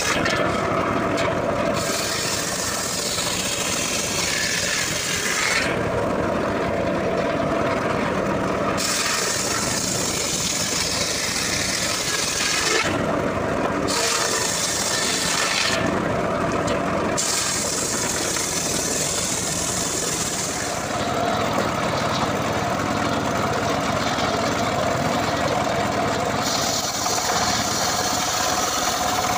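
Homemade engine-driven circular sawmill ripping dry acacia logs. The saw runs steadily and loud under load, and the high hiss of the blade cutting wood fades and returns several times as the log is fed through.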